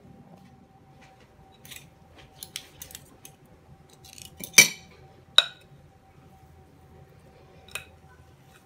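Hard kitchenware being handled on a table: a few light clicks, then two sharp clinks about a second apart near the middle, and one lighter knock later.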